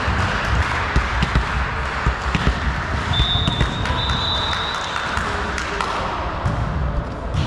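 Echoing sports-hall din during a volleyball match: scattered thumps of ball and feet on the court floor, a few short high-pitched tones, and distant voices.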